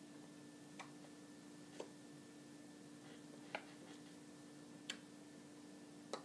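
Five faint, irregular clicks and taps of hands meeting while signing, over a steady low electrical hum.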